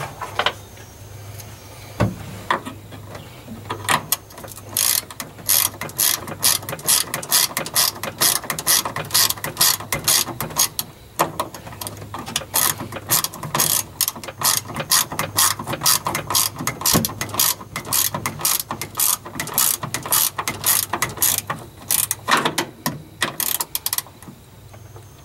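Hand ratchet wrench clicking in quick back-and-forth strokes as a nut or bolt is tightened, in runs of clicks with short pauses.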